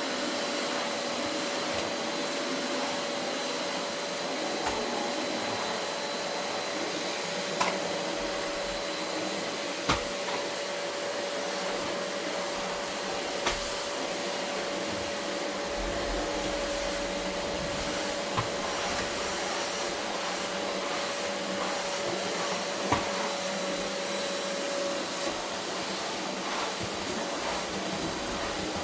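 Vacuum cleaner running steadily on carpet, a constant hiss with a steady whine, broken by a few short sharp clicks and knocks.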